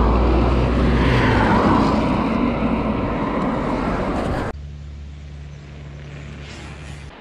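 Raw ride noise from a GoPro on a mountain bike: loud wind rush and tyre roar on the trail. It cuts off suddenly about four and a half seconds in, giving way to a quieter, steady low hum.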